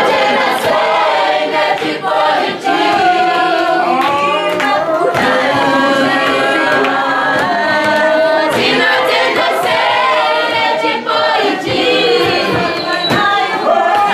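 A group of children singing together without instruments, with hand claps mixed in.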